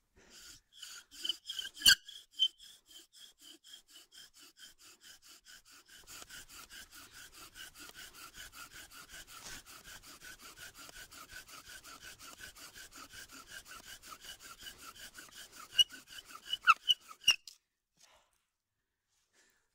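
Bow drill in use: the wooden spindle squeaking in the fireboard socket with every stroke of the cord bow, a fast even run of squeaks, several a second, that stops shortly before the end. The squeaking comes from too little downward pressure on the spindle, which the driller says he is too worn out to give.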